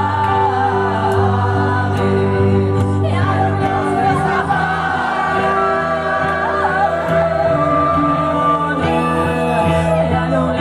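Live band playing a song with a singer: a voice sings over held chords and a steady bass.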